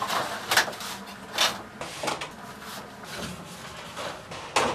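Stiff paper model parts rustling and scraping as a card bumper piece is handled and slid into place against a paper car model, in several short scrapes.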